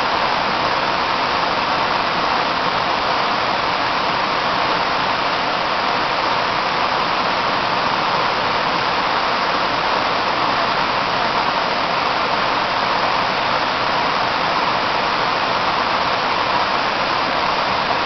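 Waterfall water sheeting down a sloping rock slab, a steady unbroken rush.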